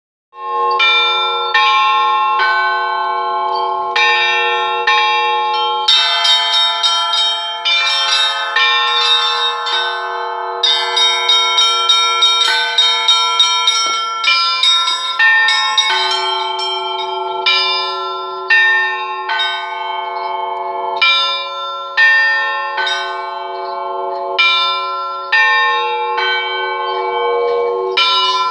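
A set of Russian church bells rung by hand in a rhythmic peal: several bells of different pitches, the small high bells chiming quickly over steady strokes of the deeper bells, busiest in the middle and thinning out later.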